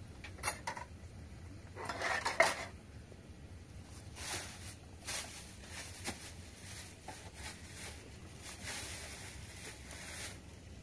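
Plates and metal pots clattering as they are handled in a dish rack, with a loud cluster of knocks about two seconds in and lighter, scattered clinks after.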